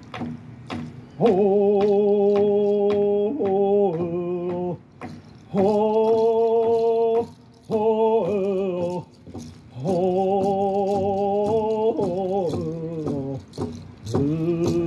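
A man singing long held notes in phrases that step down in pitch at their ends, through a PA system, over a steady drum beat of about two strokes a second.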